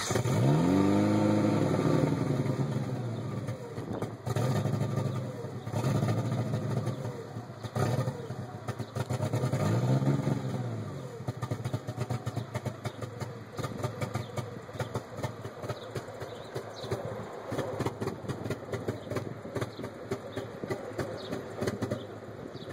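Eagle Talon TSi's turbocharged four-cylinder engine idling rough, with an uneven, pulsing beat. It is blipped briefly near the start and again about ten seconds in, the pitch rising and falling back each time.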